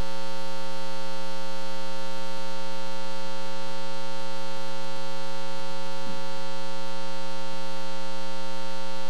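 Steady electrical mains hum: a constant buzz with many overtones, unchanging in level throughout.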